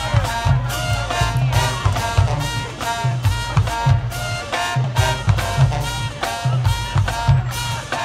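College marching band playing: a brass section hitting short, punchy chords in a steady rhythm over drums, with sousaphones carrying a heavy bass line.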